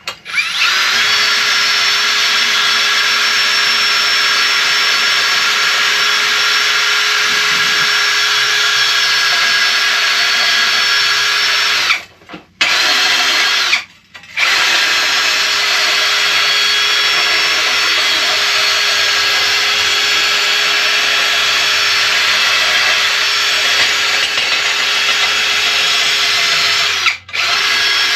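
Handheld power tool running at a steady speed with a whine, cleaning up a part before painting. It stops briefly twice about halfway through and once more near the end.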